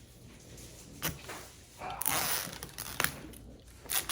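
Handling noises of toy packaging being opened: a few sharp clicks and a brief crackling rustle of plastic about two seconds in.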